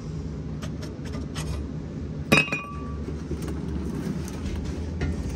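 Metal clinks and taps as the steel U-bolts are pulled off a truck's rear axle, with one loud ringing clank a little over two seconds in. A steady low hum runs underneath.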